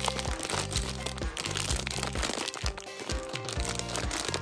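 Background music with a bass line, over the crinkling of a plastic gummy-candy bag being squeezed and turned in the hands.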